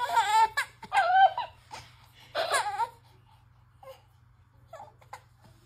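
Toddler crying in wavering wails, three loud outbursts in the first three seconds, then only a few faint whimpers.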